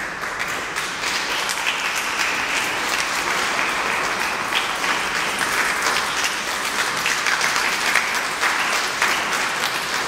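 Concert audience applauding, a dense, steady clapping that starts suddenly and holds at an even level.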